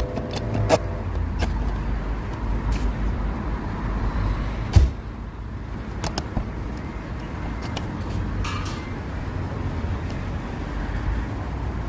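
A car's engine running with a steady low rumble, with scattered clicks and one loud knock about five seconds in, after which it is a little quieter.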